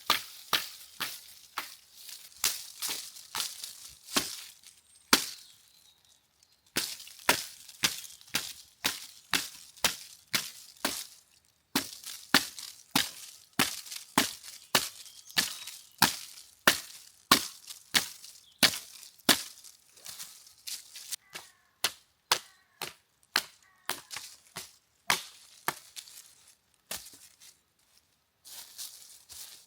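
Repeated sharp chopping strikes, about two to three a second, in runs broken by short pauses.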